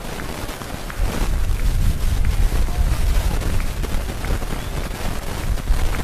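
Wind buffeting the camera microphone: a low, uneven rumble that gets stronger about a second in.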